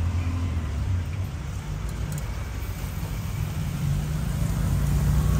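A motor vehicle engine running close by, a low steady hum whose pitch shifts about halfway through, over street traffic noise.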